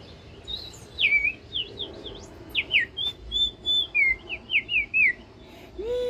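Small plastic toy bird whistle blown in a quick string of short chirping whistles, most falling in pitch, with one longer level note near the middle. A child's wail starts near the end.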